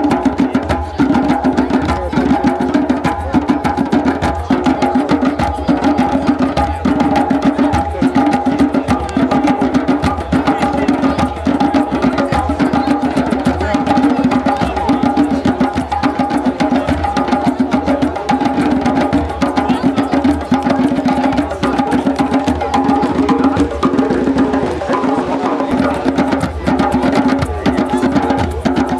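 A drum circle of many djembes played together in a fast, continuous rhythm, with a steady held tone running underneath.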